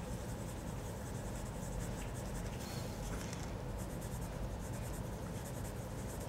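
Prismacolor soft-core coloured pencil (1031 Henna) scratching steadily on paper in many short strokes as the dark brick colour is laid in.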